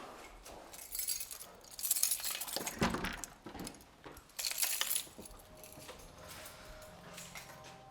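Clinking and jangling in several short bursts, with a thump about three seconds in. A faint steady tone comes in over the last few seconds.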